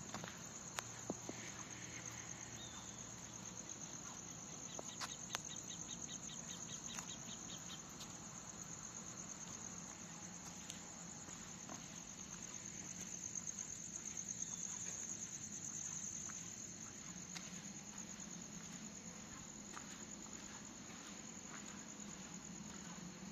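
Night insects chirring in a steady, high, finely pulsing chorus. A second, faster ticking call joins briefly about five seconds in, and there are a few faint clicks.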